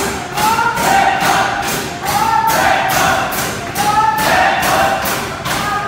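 Music: voices singing a melody over a steady beat of about two beats a second.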